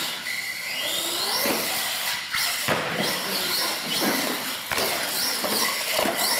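Radio-controlled solid-axle monster truck's electric motors and gears whining, rising in pitch several times as it accelerates. A few sharp knocks come as it runs over the jump ramp and lands.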